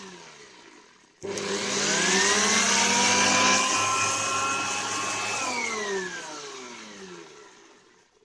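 Electric air blower switched on about a second in: its motor whine rises as it spins up over a strong hiss of air, runs steadily for a few seconds, then falls in pitch and fades away as it winds down.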